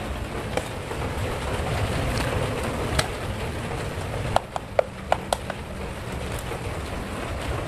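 A hand handling a plastic action figure on sand, giving a few small sharp clicks, one about three seconds in and four more close together near the middle, over a steady rushing background noise.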